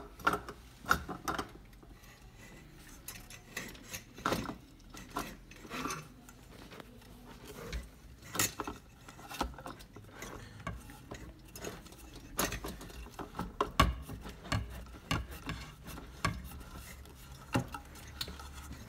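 Irregular metallic clicks and clinks of brass floor-lamp parts being handled: the wire is fed through the base plate and the threaded pipe section is fitted onto the base's threaded stud.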